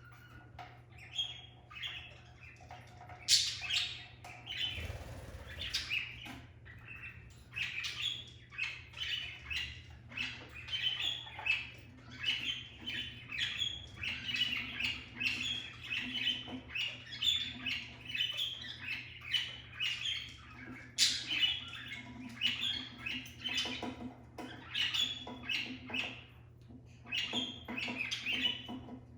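A small flock of budgerigars chattering in their cage: a busy stream of short, rapid chirps, with a few louder sharp calls standing out, over a faint steady hum.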